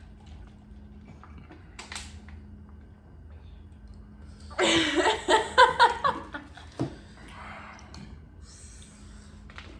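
A person laughing, a short burst of several quick pitched pulses lasting about a second and a half, starting around five seconds in. A few faint clicks come before and after it.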